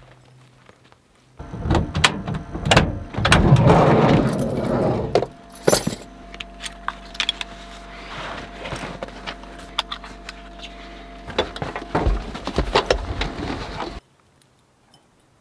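Keys jangling and backpack straps, buckles and gear clattering beside a Volkswagen Vanagon camper van, over a steady vehicle hum from about five seconds in. The sounds cut off abruptly near the end.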